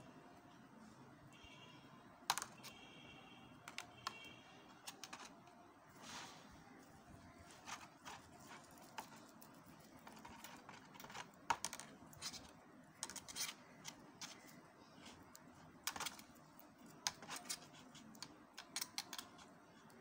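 Faint, irregular clicks and crackles of hands wrapping stretchy floral tape around a wire flower stem, bunched into short runs.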